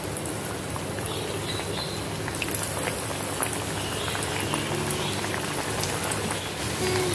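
Slices of alu vadi (colocasia leaf rolls) deep-frying in hot oil in a kadhai: a steady sizzle with many small crackling pops, getting a little louder after a couple of seconds as more slices go in.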